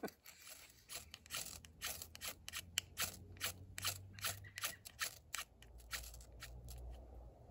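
Steel striker scraped down a ferro rod again and again to throw sparks onto chaga tinder, in a rapid run of short, sharp scrapes about three or four a second. The scraping stops about five and a half seconds in.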